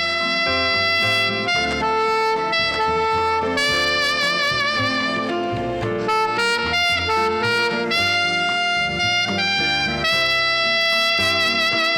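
Alto saxophone playing a slow melody, with vibrato on the long held notes, over a backing track with a steady bass line.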